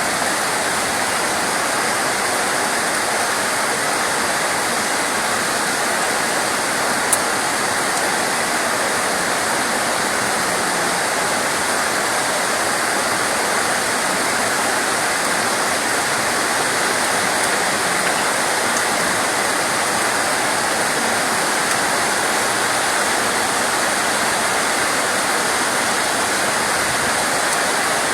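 Steady, even rain noise with no let-up, and a single sharp tick about seven seconds in.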